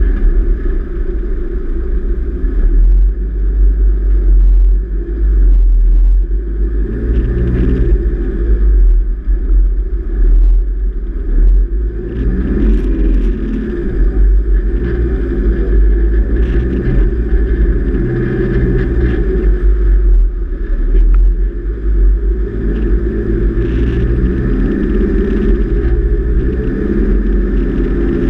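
Four-wheel-drive vehicle driving on soft beach sand: the engine runs continuously over a deep, steady rumble, its note rising and falling several times as the revs change.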